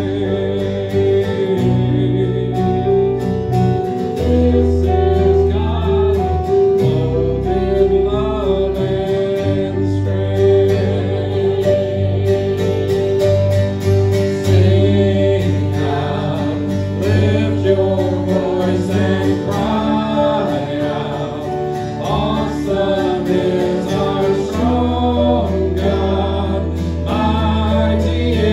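Worship band playing a gospel song: a woman singing lead over acoustic guitar, electric bass and keyboard.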